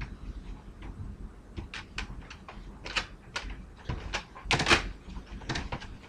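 Wire dog crate rattling and clinking in irregular knocks as puppies move about and paw at it from inside. The loudest clatter comes about four and a half seconds in.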